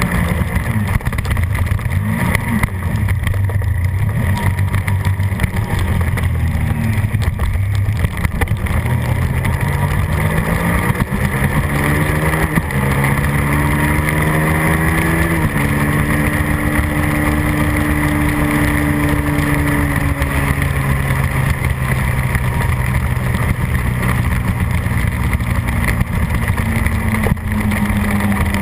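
Suzuki SV650's V-twin engine at race pace, heard from on the bike: the revs climb, drop sharply twice around the middle as it shifts up, then hold a steady high note down the straight and slowly fall off before picking up again near the end.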